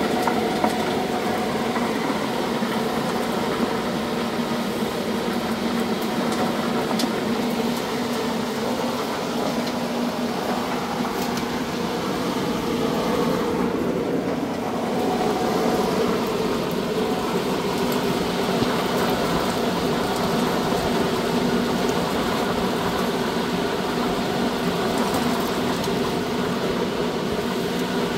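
Electric olive deleafer (olive blower-cleaner) running: a steady hum from its fan and motor with a low steady tone. The olives and leaves fed into its chute by hand make a light rattle.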